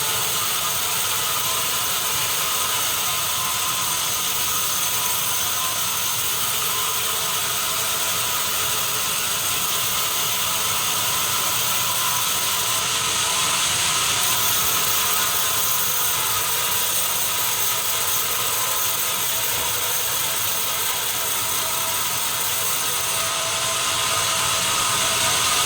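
Sawmill saw running steadily through timber: an even, high hiss with a few steady whining tones, unbroken throughout.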